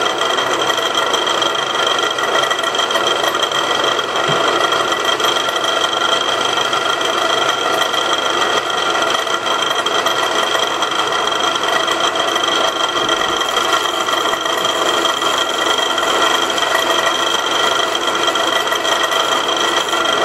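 Bench drill press running steadily, spinning an M6 threaded rod down onto a stationary 3 mm drill bit held upright in a vise, centre-drilling a bore through the rod. A continuous scraping of the cut sits under the motor's steady high tones.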